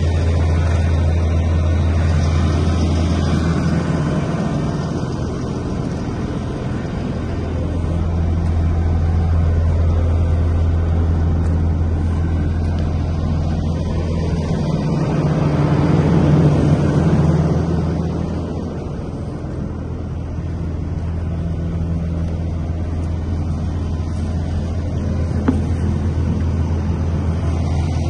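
Diesel engine of a Volvo P6870C asphalt paver idling steadily, a low even hum that grows louder and softer, loudest about two-thirds of the way through.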